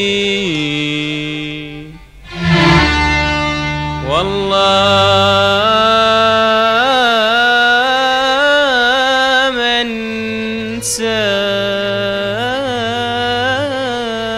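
Traditional Gulf Arabic song: a male voice holding long, ornamented notes that waver up and down, over a steady instrumental accompaniment, with a brief break in the phrase about two seconds in.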